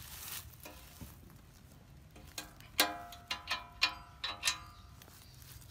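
Steel earth-auger bit clinking against metal as it is handled and fitted onto the auger's output shaft: a run of about six sharp metallic clinks, each with a short ring, starting a little past halfway.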